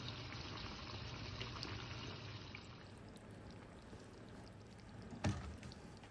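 Liquid being poured, a faint steady pour that stops about three seconds in, followed by a single light knock a little after five seconds.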